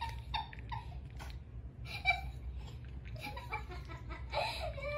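Soft, scattered laughter from a person off camera, over a steady low hum; a louder vocal sound comes near the end.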